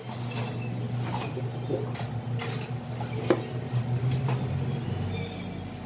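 A steady low hum with scattered light clicks, knocks and clatter from a child rummaging in an open refrigerator.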